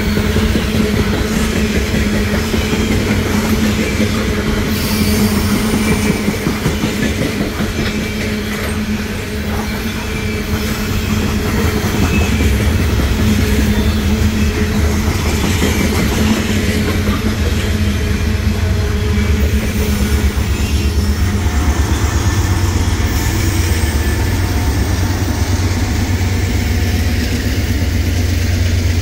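Freight cars rolling past close by: steel wheels running on the rail with a steady rumble and a rapid clatter over the joints, and high wheel squeal coming and going at times.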